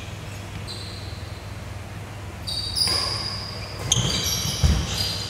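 Court shoes squeaking on a wooden badminton court floor during a rally, over a steady low hum. The squeaks are sparse at first and come thick and fast from about halfway, with a couple of heavy footfall thuds near the end.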